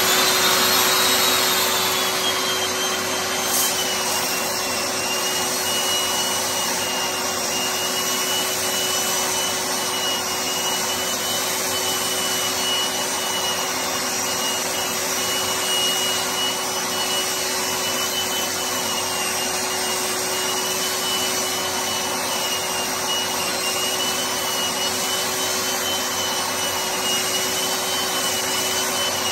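Electric drywall sander running steadily, sanding dried plaster patches. It gives a steady motor hiss with a high whine that settles slightly lower in the first few seconds.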